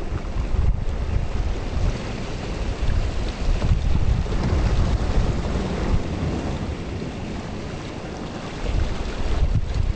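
Gusty wind from an approaching storm buffeting the microphone: a rough, low rumbling noise that eases off about seven seconds in and picks up again near the end.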